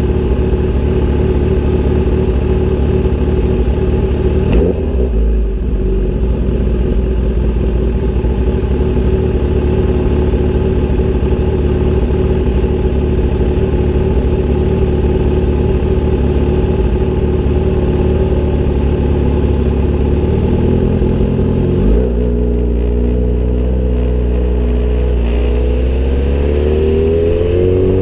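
Sport bike engine breathing through an SC-Project aftermarket exhaust, idling steadily at a stop, with a short blip of the throttle about four seconds in. Near the end the revs climb as the bike pulls away and accelerates.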